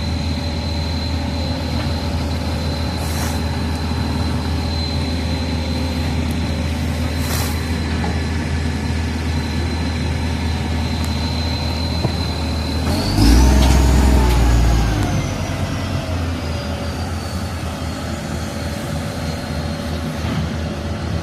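Heavy diesel engine running steadily with a low drone and a thin high whine. About thirteen seconds in it surges louder for about two seconds, and a whine climbs and then slowly falls away.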